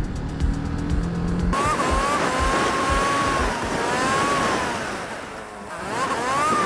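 Background music with a steady beat, cut off about a second and a half in by the sound of a TVS Apache RR 310's single-cylinder engine running at road speed under wind noise, its pitch wavering up and down. Near the end the engine revs up and falls back.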